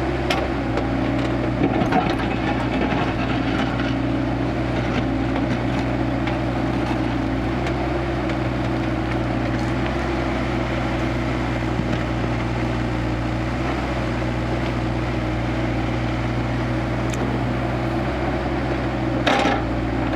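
Kubota KX161-3 mini excavator's diesel engine running at a steady speed, with a few light knocks and a brief louder rush near the end.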